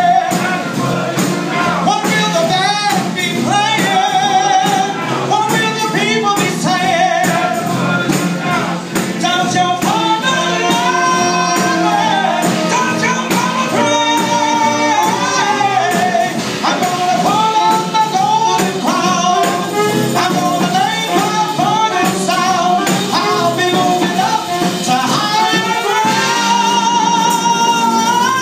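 Small traditional New Orleans jazz band playing live: wavering horn melody lines over guitar and upright bass, with a tambourine shaken along.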